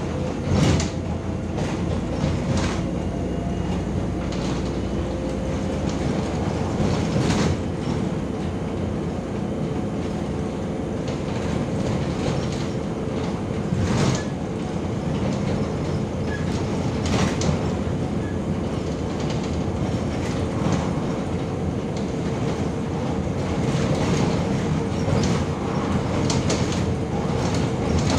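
Cabin noise inside a MAZ-105 articulated city bus under way: a steady rumble from the running gear and road, with a faint steady whine. Several sharp knocks come through it at irregular intervals.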